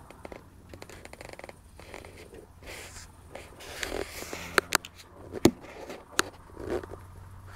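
Rustling and handling noise from a handheld camera being moved about, with a few sharp clicks in the second half.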